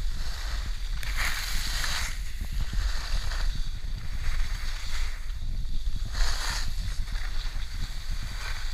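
Skis sliding and scraping over groomed snow while skiing downhill, with wind rumbling on the microphone. The scraping swells to louder hisses about a second in and again around six seconds, as in carved turns.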